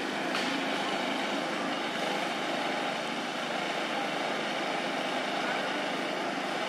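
Steady outdoor background noise: a hum of distant traffic with faint, indistinct voices.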